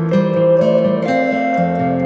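Background music of plucked string notes, a melody over chords.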